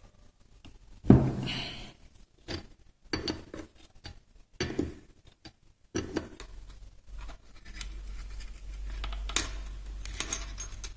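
Steel parts clinking and knocking against a Hondamatic transmission case as a rod is handled and fitted by hand. The sharpest knock comes about a second in, followed by several lighter metallic clicks.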